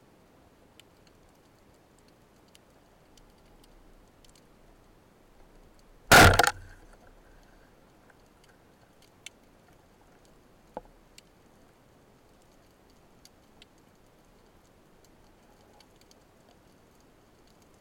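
Wooden band-powered speargun firing underwater: one loud sharp shot about six seconds in, with a brief ringing after. Faint scattered clicks before and after it.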